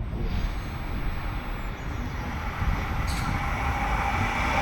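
Tram on its rails: a steady rumble that grows louder, with a high, steady whine joining in over the last second or so.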